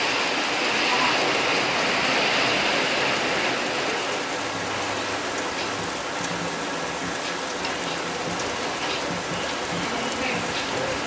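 Steady rain falling, an even hiss that is heavier for the first few seconds, with a few faint drips later on.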